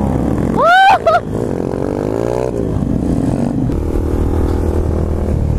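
Motorcycle engines running at road speed with wind rumble on the microphone, their pitch rising and falling, then steadier. About half a second in, a short loud whoop arches up and falls away.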